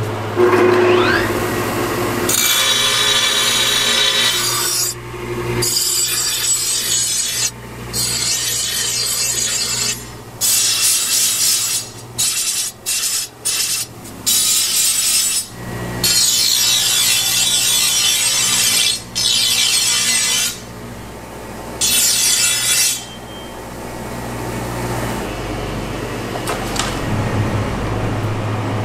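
Steel sword blade pressed against a spinning grinding wheel in repeated passes: bouts of harsh, hissing grinding that cut off suddenly between passes, over the steady hum of the grinder motor. The grinding stops for the last few seconds, leaving the motor's hum.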